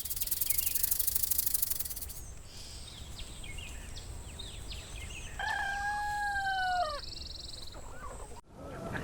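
A rooster crowing once, a long held call that sinks slightly at the end, a little past halfway through. Before it, a fast high trilling of insects and faint bird chirps.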